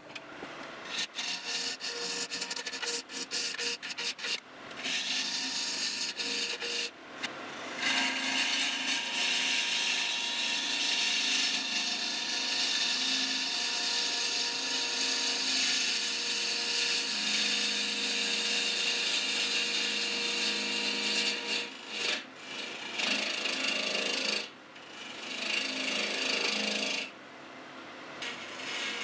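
A gouge cutting into a spinning segmented wood blank on a lathe: a rough scraping rush of wood being shaved away. It comes in short strokes at first, then long unbroken cuts, and stops a couple of seconds before the end. The lathe motor hums steadily underneath.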